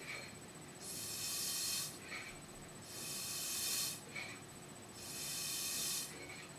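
Hand ball pump forcing air into a small plastic ball: three hissing strokes about two seconds apart, with a short squeak between strokes.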